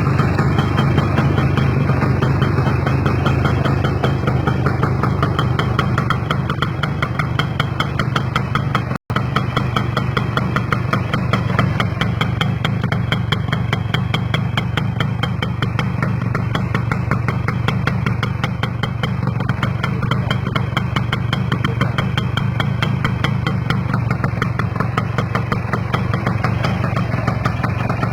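Kawasaki GTO motorcycle's two-stroke single-cylinder engine idling steadily, with a momentary dropout about nine seconds in.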